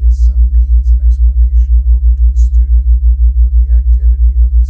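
Loud, low theta-wave tone pulsing evenly about five times a second. A faint voice reads text underneath it.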